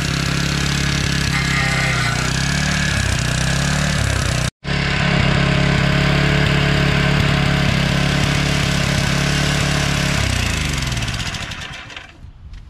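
Toro edger's 2 hp Suzuki four-stroke engine running steadily on a Briggs & Stratton 500E/550E-type plastic carburetor fabricated to fit it, which works fine. Near the end the engine slows, falling in pitch, and stops.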